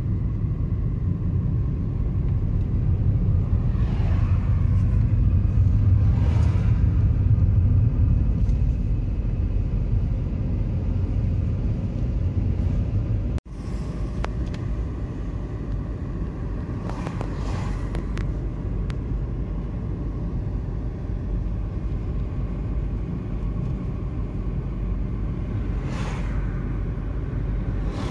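Steady low rumble of road and engine noise inside a moving car. It drops out for an instant about halfway through, then carries on slightly quieter.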